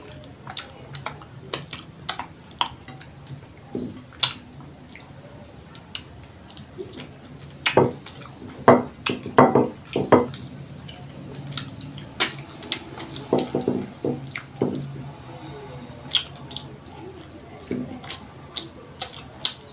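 Wet mouth sounds of someone eating fish with his fingers: sharp smacking and sucking clicks as he licks sauce off his fingers and chews, scattered throughout and loudest about eight to ten seconds in.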